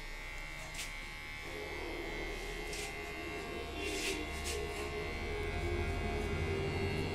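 Cordless electric hair clipper buzzing steadily as its blades cut short hair at the side and behind the ear, with a few brief crisp rasps as it passes through the hair.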